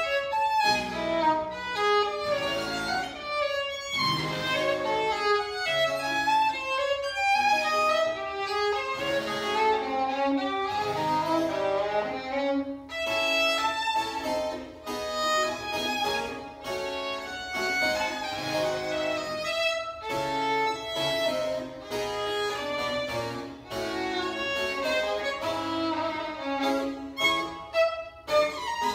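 Baroque violin playing a sonata with harpsichord accompaniment, a moving line of short bowed notes over the harpsichord's plucked chords.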